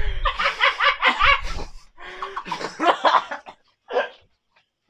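A small group laughing loudly in quick, repeated ha-ha pulses, dying down toward the end. Two short low thuds come near the start and about a second in.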